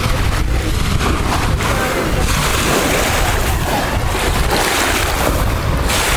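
Small sea waves washing and lapping at the sandy waterline, a steady hiss, with wind rumbling on the microphone.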